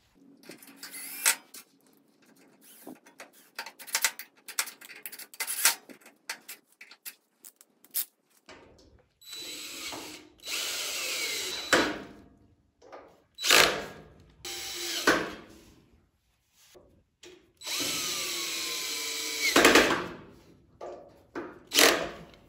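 Cordless drill driving M6 screws into the griddle's steel frame in about six short whirring runs in the second half, some winding down in pitch as the screw seats. Before that come clicks and knocks of parts being handled.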